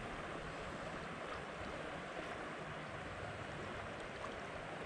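Shallow creek water rushing steadily over a stony riffle, an even hiss with no breaks.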